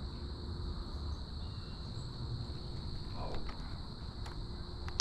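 Insects trilling steadily at one high, unbroken pitch over a low rumble, with a few faint clicks late on.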